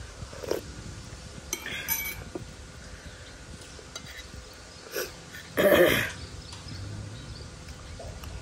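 Eating from ceramic dishes: a spoon and fork clink against a bowl and plate a few times, with a short, louder mouth sound of eating a little past the middle.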